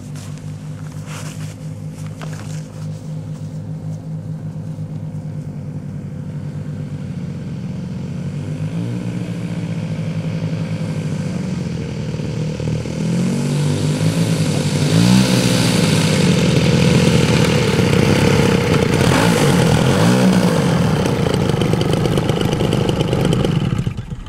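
Twin DLE 111cc gasoline engines of a giant-scale F7F Tigercat RC model running as the plane rolls across grass toward the listener, getting steadily louder. In the second half the pitch dips and rises a few times as the throttle is worked.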